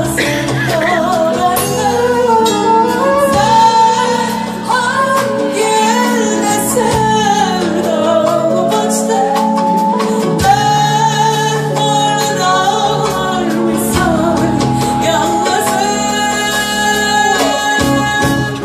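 A woman singing live into a microphone with a band accompanying her, a long melodic vocal line with sustained, gliding notes.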